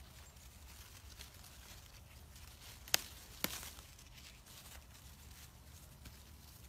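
Faint rustling as a hand handles okra plant leaves and pods, over a low steady rumble, with two sharp clicks about three seconds in, half a second apart.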